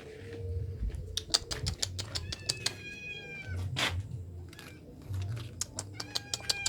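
A stray cat meowing: one call about two seconds in and another near the end. Many sharp clicks and ticks run throughout.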